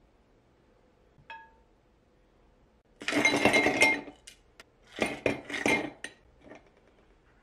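Kitchen dishes and cutlery clinking and clattering. A single ringing clink comes about a second in, then a second or so of dense clatter, then a run of separate knocks and clinks.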